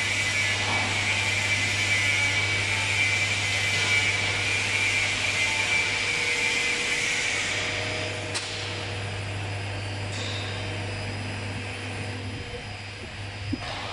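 Solvent-free PU leather coating machine running: a steady low hum under a high hissing whine, the whine easing about halfway through.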